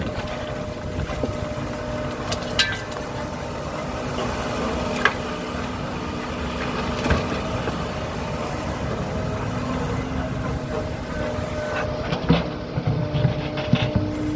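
Kobelco SK75 excavator's diesel engine running steadily while it digs, with sharp knocks several times as the bucket and arm work.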